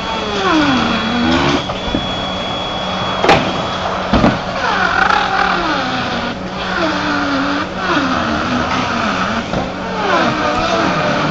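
Handheld router cutting through OSB roof decking. Its motor pitch sags and recovers again and again as it loads up in the cut. Two sharp knocks come about three and four seconds in.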